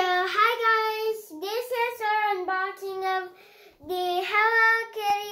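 A young girl singing in a high voice, in phrases of long held notes, with a short pause about three and a half seconds in.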